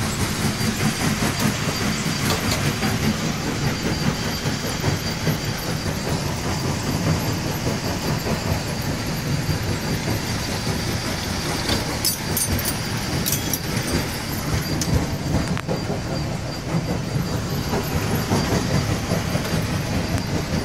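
A steady, loud mechanical rumble with a fast flutter, from a running machine, with a few sharp clicks about twelve to thirteen seconds in.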